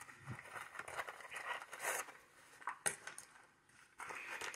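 Faint rustling and light metallic clinks from handling a steel-bracelet watch in a zippered fabric travel case, with a few sharp clicks about three seconds in.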